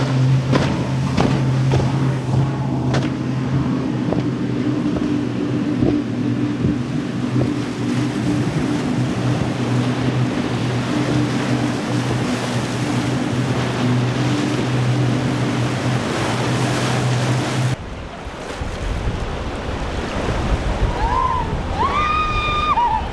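Boat engines running with a steady low drone over the rush of water and wind, with a few sharp knocks in the first seconds. The drone cuts off abruptly near the end, leaving wind buffeting the microphone and surf.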